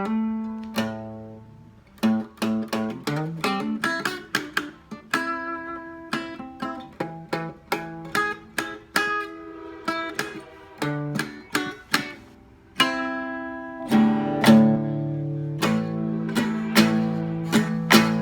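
Acoustic guitar played solo in a blues vein, picked single notes and short runs mixed with chords, each note ringing and fading. The playing grows louder and fuller with sustained chords about two-thirds of the way in.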